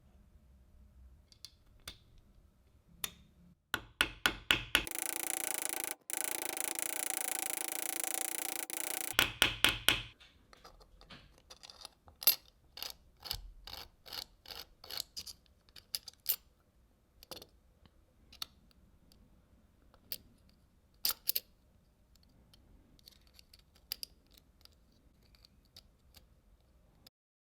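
Small metal parts clicking and clinking as they are handled. Midway there are about four seconds of steady hiss, with a quick rattling run of clicks just before and just after it.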